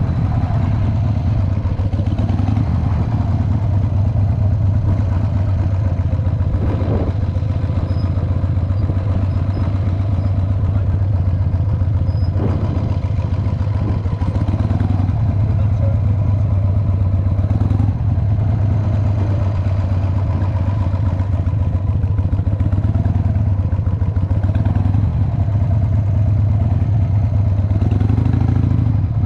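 Cruiser motorcycle engine running steadily at low speed, heard from the rider's seat as a constant low drone.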